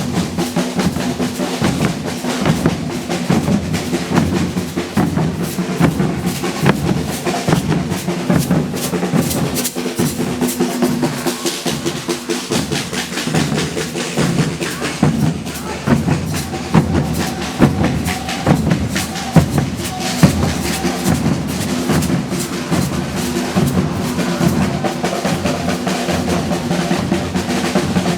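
Brazilian percussion ensemble drumming a steady, dense rhythm.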